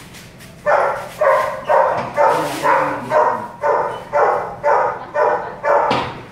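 Belgian Malinois crying out in a rapid run of about ten sharp yelping barks, about two a second, each starting sharply and trailing off.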